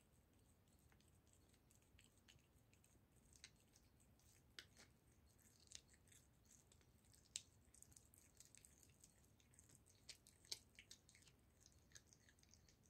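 A cat chewing and gnawing raw goose neck: faint, irregular wet clicks and crunches of teeth on meat and bone. They are sparse at first and come thicker from about three seconds in, with the sharpest snaps around the middle and about ten seconds in.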